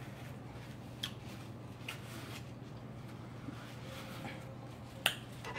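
Quiet eating sounds and a paper napkin being handled: a few faint clicks and one sharper click near the end, over a steady low hum.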